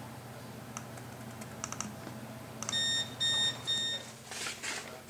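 A few soft clicks, then three short electronic beeps in a row, each a steady pitch, as edited speed-table values are written to a locomotive's DCC decoder. A low steady hum runs under them and stops just after the beeps.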